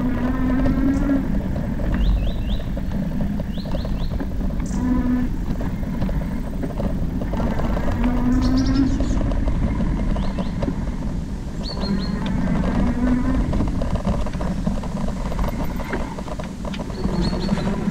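E-bike riding on a dirt trail: steady wind and tyre rumble, with the electric assist motor giving a short rising whine every few seconds. Birds chirp in short runs of high notes over it.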